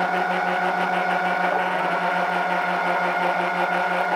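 Twin electric motors and propellers of a radio-controlled model plane running steadily in flight, heard from the plane's onboard camera: a constant hum with a higher whine over it.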